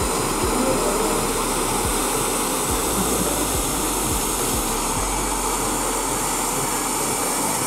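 Handheld hair dryer running steadily while blow-drying long hair straight, with a few low thumps scattered through it.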